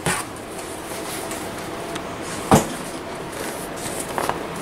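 Handling noise as a padded pouch is lifted out of a foam-packed cardboard box, with one sharp knock about halfway through and a few light clicks near the end.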